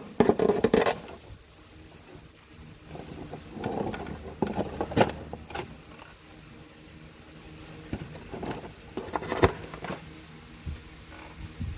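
Wooden matchsticks clicking and rustling as they are handled and pushed one by one into tightly bundled matches, with a cluster of clicks at the start and sharper single clicks around five and nine seconds in. A faint steady low hum runs beneath.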